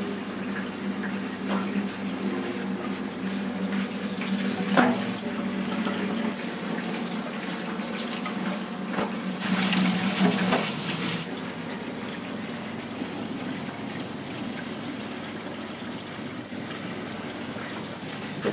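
Tap water running into a stainless steel sink, loudest for a couple of seconds about halfway through. Under it is a steady kitchen hum, with a few sharp clinks of metal utensils.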